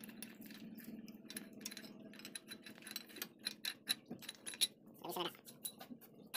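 Scattered light metallic clicks and ticks, growing more frequent about halfway through, as tools and engine parts are handled, over a faint steady hum.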